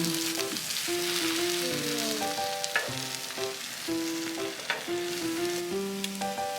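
Food sizzling and frying on a hot plate, with a few sharp ticks. A simple background melody plays alongside.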